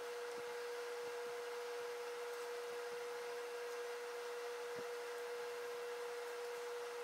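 A steady hum at one pitch over a faint even hiss, with a few faint soft ticks.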